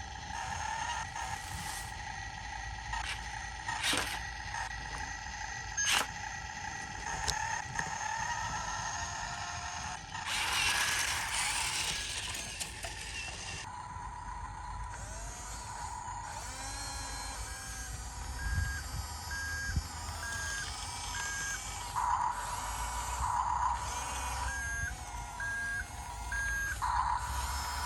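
Excavator at work: engine running low under sharp clicks and a rush of noise about ten seconds in, with a warning beeper sounding in two short runs of about four beeps near the end.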